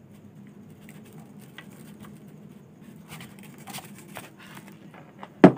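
Hot glue gun laying glue on a thermocol (polystyrene foam) sheet: faint scratching and ticking of the trigger and the nozzle dragging over the foam, then one sharp knock near the end.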